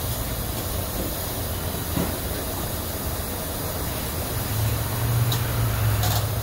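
Gasoline pumping through a fuel nozzle into a car's tank: a steady rushing hiss over a low hum that swells in the second half, with a couple of faint clicks near the end.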